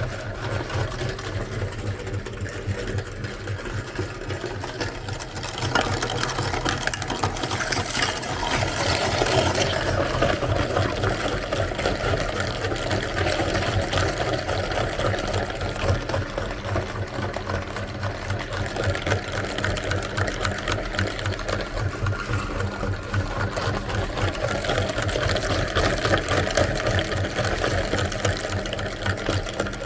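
Electric meat grinder running steadily, its motor humming with a fast, even pulse while it grinds, a little louder from about six seconds in.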